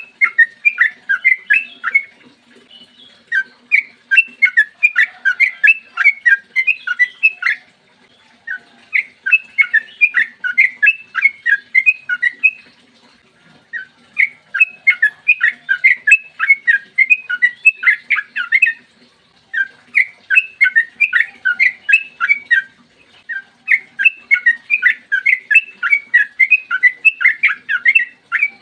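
Trucukan (yellow-vented bulbul) singing its long 'ropel' song: phrases of rapid, loud chirping notes, about five a second, each run lasting a few seconds before a short pause. A faint low hum lies underneath.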